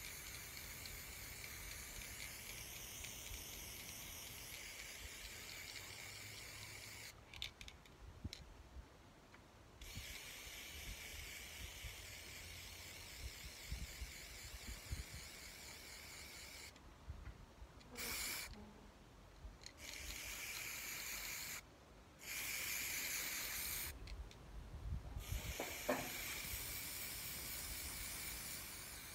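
Aerosol spray-paint can hissing as paint is sprayed in long bursts, stopping briefly several times when the nozzle is released.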